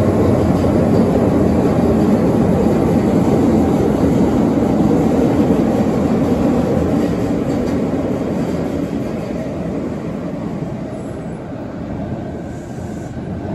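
In-car running noise of a Fukuoka City Subway 3000A series linear-motor metro train: a steady, dense rumble of wheels and tunnel air. Over the last few seconds it eases off and grows quieter as the train nears its next station.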